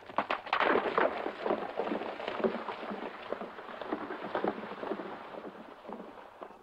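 Hoofbeats of galloping horses, a dense run of irregular knocks that is loudest in the first second or so and then fades away before cutting off near the end.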